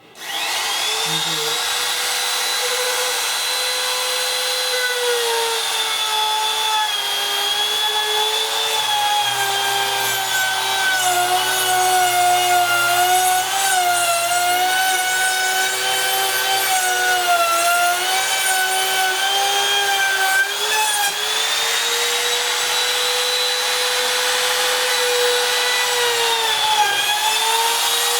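A high-speed electric power tool working wood. Its motor whine sags in pitch from about 5 seconds in, recovers around 22 seconds, and dips briefly again near the end, as the tool takes load and eases off.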